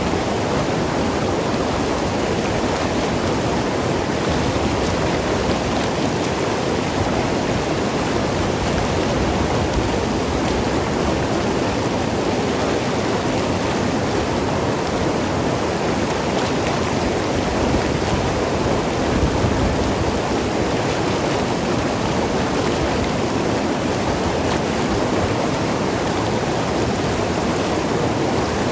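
Mountain river flowing and gurgling over rocks: a steady, even rush of water with no breaks.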